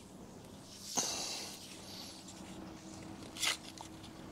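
Plastic side shroud of a Yamaha XSR900 being worked loose from its clips by hand: a sharp click about a second in and a short scrape at about three and a half seconds.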